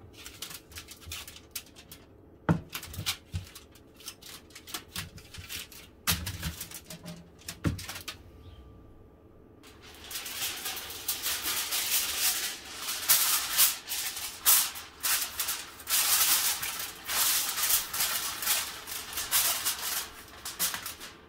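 Aluminium foil crinkling as a sheet is spread over a baking tray and pressed down around its edges, in a dense rustle through the second half. Earlier come lighter crinkles and a few dull knocks as the foil-lined tray is handled.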